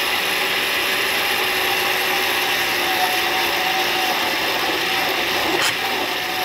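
Cuisinart countertop blender motor running steadily at speed, blending mamey sapote pulp, milk and ice into a thick shake, with one brief knock about five and a half seconds in.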